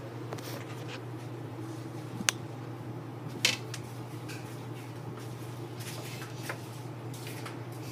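Steady low hum of room noise with a few short sharp clicks, the loudest about three and a half seconds in.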